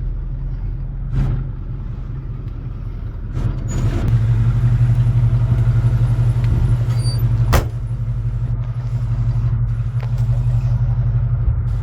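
1985 Chevrolet Monte Carlo idling, a steady low hum that grows louder for a few seconds in the middle, with a few short knocks and one sharp knock a little past halfway.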